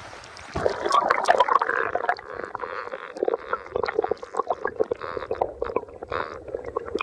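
River water heard from underwater: muffled gurgling and bubbling with many small clicks. It starts suddenly about half a second in, as the microphone goes under.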